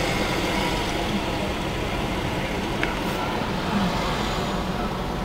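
Steady car engine and road noise heard from inside the cabin of a car creeping through city traffic.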